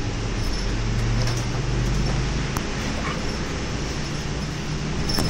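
City bus diesel engine running as the bus drives along a wet road, heard from inside the bus, with the hiss of tyres on the wet surface. The engine hum eases about halfway through and comes back slightly higher near the end.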